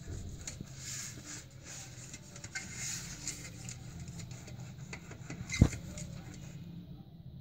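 Silicone pastry brush scrubbing and dabbing oil over a metal springform cake pan: a run of scratchy brushing and small clicks, with one sharp knock against the pan a little over halfway through. The brushing stops near the end.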